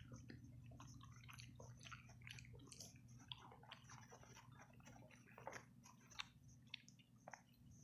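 Faint eating sounds: soft, irregular chewing of olives, with a few sharp clicks of a metal fork against a ceramic pot, over a low steady hum.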